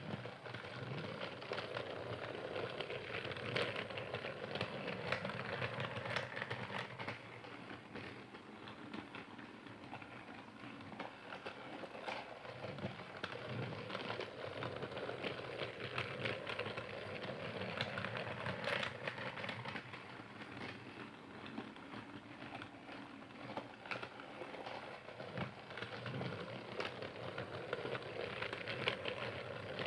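Battery-powered toy Percy train running on plastic track, a steady rattling clatter of small clicks that swells and fades slightly as it goes around.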